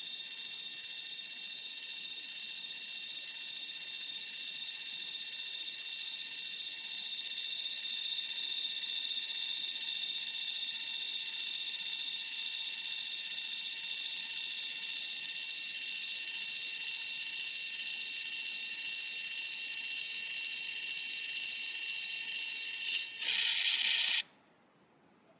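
Zoemini pocket Zink photo printer whirring steadily at a high pitch as it feeds the sheet through while printing. Near the end it turns into a louder, rougher whir for about a second, then stops suddenly as the print finishes.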